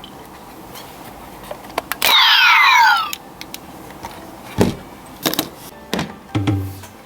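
Eternal Edge toy blade playing an electronic sound effect through its small speaker: a loud swoosh of falling tones lasting about a second, about two seconds in. It is followed by a few sharp plastic clicks and knocks from the toy being handled, the last with a brief low buzz.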